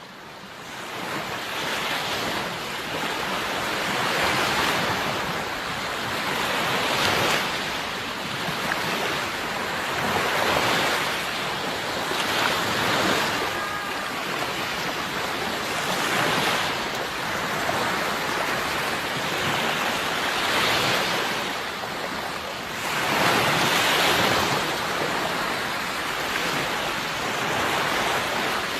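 Sea waves breaking on a shore: a continuous rush of surf that swells with each wave every few seconds, fading in at the start.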